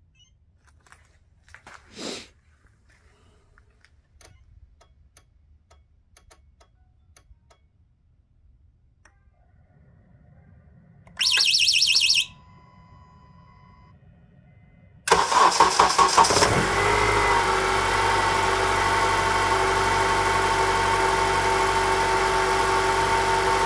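A 2008 Honda CR-V's 2.4-litre four-cylinder petrol engine is cold-started by remote autostart in about −5 °C frost. First come a few faint clicks and a faint hum, then a short, high, pulsed alarm-style chirp about eleven seconds in. At about fifteen seconds it cranks, catches within a second or two and settles into a steady idle with no load, where no knock is heard.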